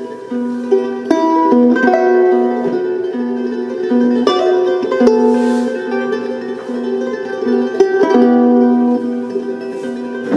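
Instrumental music with held notes and a low note that repeats on and off.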